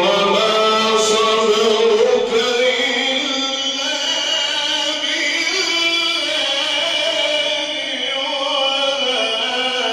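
A male Quran reciter chanting in the Egyptian mujawwad style, holding one long, ornamented melodic phrase whose pitch slides slowly up and down.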